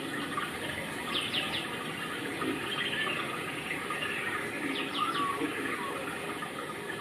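Birds chirping: two quick clusters of about three short sweeping calls, about a second in and again near five seconds, over a steady rushing background noise.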